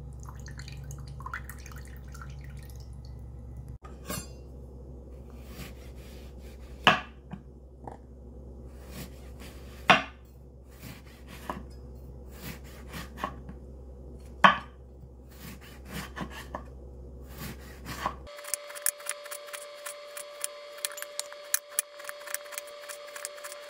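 Knife slicing through a whole lemon on a wooden cutting board, the blade tapping the board at each cut. A few loud taps come a few seconds apart, then quicker, lighter taps near the end, over a steady low hum.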